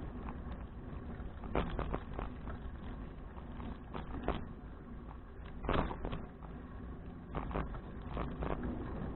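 A 2012 Fuji Touring bicycle riding along, heard as a steady low rumble broken by irregular sharp knocks and rattles from bumps, the loudest about six seconds in.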